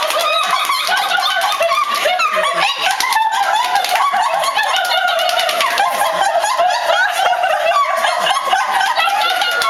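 Continuous high-pitched squeaking: many short, overlapping squeaks that glide up and down in pitch.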